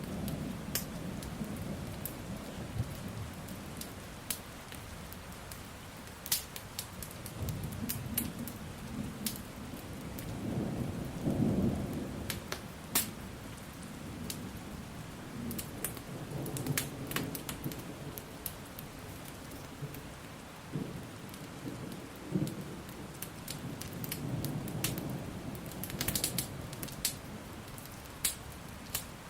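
Steady rain with low rolling thunder that swells and fades several times. Sharp crackles and pops of a burning wood fire are scattered through it.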